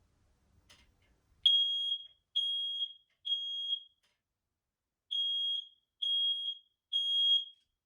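Ceiling smoke alarm sounding its test alarm after a new battery has been fitted: two groups of three loud, high-pitched beeps with a pause between the groups. This is the standard three-pulse alarm pattern, showing that the alarm now works.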